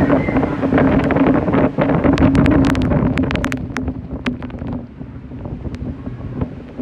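Wind buffeting the microphone over the steady low drone of the ferry's engine. A flurry of sharp clicks and ticks comes between about one and four seconds in, and then the wind eases a little.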